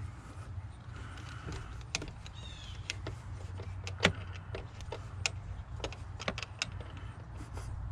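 Flathead screwdriver tightening a hose clamp on an engine's intake air boot: a run of irregular clicks and ticks, one louder click about four seconds in, over a steady low hum.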